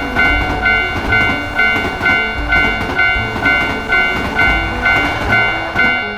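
Japanese railroad crossing warning bell ringing about twice a second, over the rumble and clatter of a passing train.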